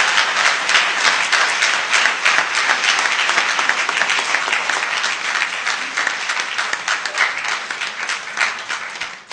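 Large audience applauding, a dense steady patter of many hands clapping that eases off near the end.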